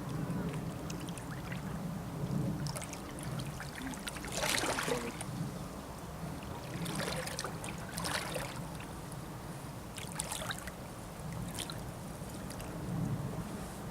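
Fast-flowing river running steadily with a low rush, with several brief scuffing noises close by, about five seconds in and again a few times later.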